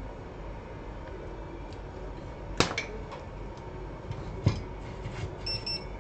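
A few sharp clicks and taps of small hard objects, the loudest about two and a half seconds in and another near four and a half seconds, over a steady background hum, with two very short high beeps near the end.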